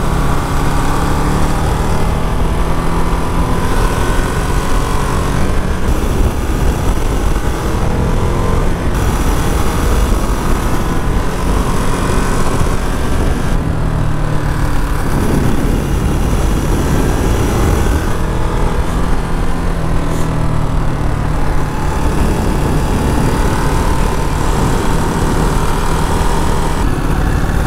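Ducati Monster's 937 cc V-twin running under way through a series of bends, its revs rising and falling as the rider rolls the throttle off and on, over steady wind and road rush.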